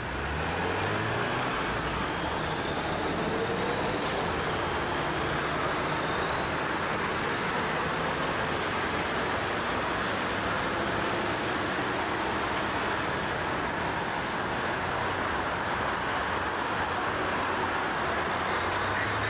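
Steady road traffic noise from cars on a wide city street, with a vehicle's engine rising in pitch in the first couple of seconds and again near the end.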